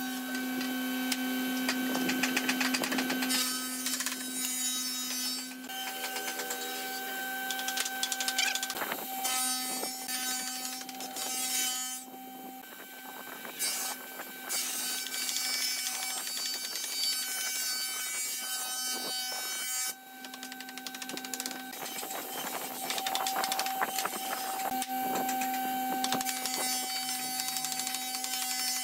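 Wooden boards and slats being handled, knocked and slid into place by hand, with many short knocks and scrapes of wood on wood. A steady mechanical hum runs underneath throughout.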